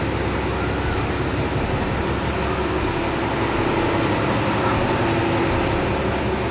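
A motor running steadily, a loud even drone with a constant hum that neither rises nor falls.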